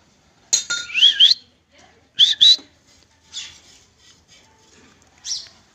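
Monkey calling: two loud, shrill calls with pitch sweeping up and down, about half a second and two seconds in, followed by fainter, shorter calls.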